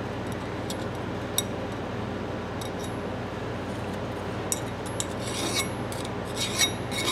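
A hand file scraping in a few short strokes over the steel head of an old S&K Wayne breaker bar, deburring it; the strokes start about five seconds in, after a few light ticks of a small tool against the metal.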